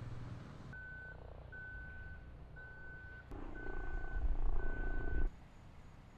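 Vehicle reversing alarm beeping five times, about once a second, with an engine running louder under the last two beeps.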